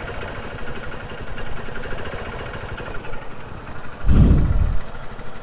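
Motorcycle engine idling steadily, with a loud low rumble lasting under a second about four seconds in.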